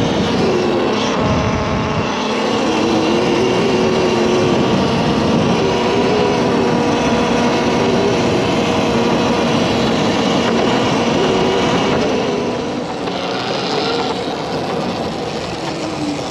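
Electric dirt bike with a QS138 mid-drive hub motor being ridden: a motor whine that rises and falls with the throttle, over steady wind noise.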